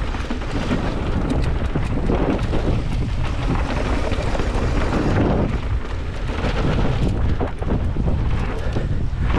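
Wind buffeting an action camera's microphone over the rumble of knobby mountain bike tyres on a dirt trail at speed. Through it come many sharp clicks and rattles from the bike jolting over the bumps.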